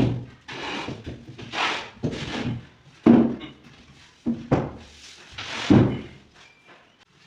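A series of heavy wooden thuds and knocks at irregular intervals, some followed by a brief scraping: a large plywood box being handled and fitted against a wall.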